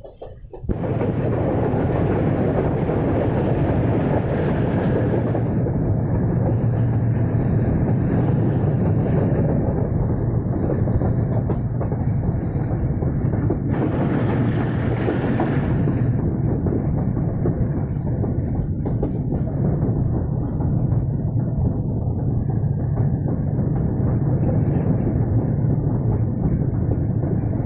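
Moving passenger train heard from on board at an open doorway: the steady rumble of wheels on the rails mixed with rushing air. It starts abruptly about a second in, and has a brief hissier stretch about halfway through.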